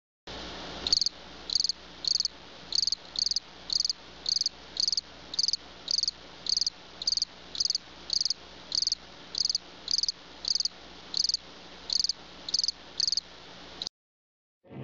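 Insect chirping in a steady rhythm, about two short high chirps a second, over a constant hiss; it cuts off suddenly near the end.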